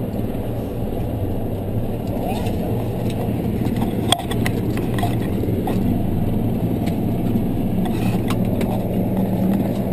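Helicopter engine and rotor running steadily, heard from inside the cabin, with a sharp knock about four seconds in.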